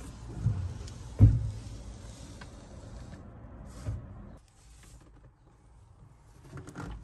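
Handling noise from a handheld camera being moved around, rustling with a few dull thumps, the loudest about a second in. It grows much quieter a little after four seconds in.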